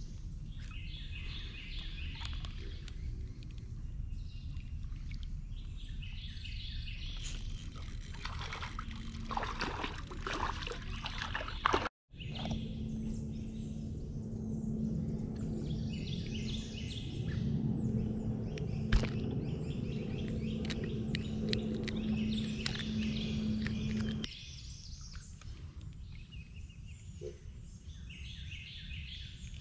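Birds calling again and again over a quiet river. About seven seconds in, a fish splashes at the water's surface for a few seconds. After an abrupt break, a steady low hum runs for about twelve seconds and then stops suddenly.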